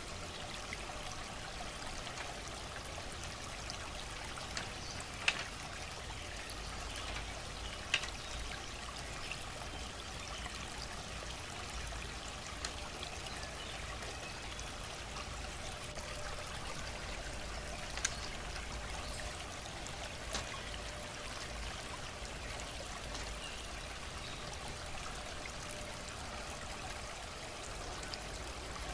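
Steady trickle of running water, broken a handful of times by sharp light clicks of thin bamboo strips knocking together as they are laid into a lattice.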